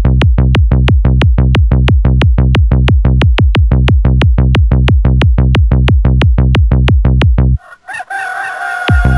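Minimal techno track driven by a steady, evenly spaced kick drum. Near the end the kick drops out and a rooster crowing sample sounds for about a second before the beat comes back in.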